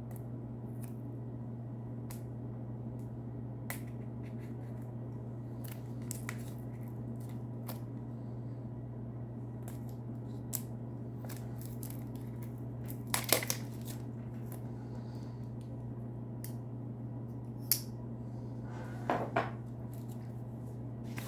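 Pocket knife cutting open a package, with scattered clicks and rustles of cardboard and packaging being cut and handled, and a few louder rustles about two-thirds of the way through and near the end. A steady low hum runs underneath.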